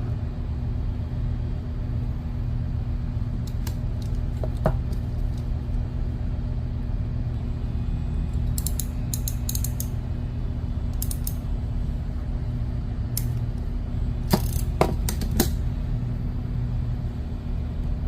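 Crimping tool being worked by hand, giving short metallic clicks in a few small clusters over a steady low hum.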